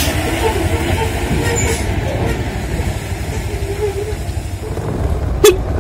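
Diesel dump truck engines running low and steady as the trucks crawl past. A short, sharp loud burst comes near the end.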